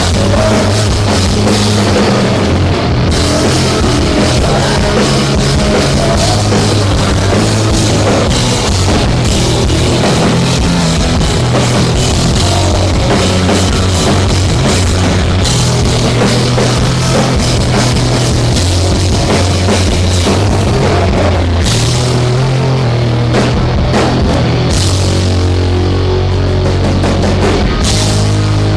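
Rock band playing loudly with drum kit, bass and guitar, the bass moving between held low notes every couple of seconds; no singing.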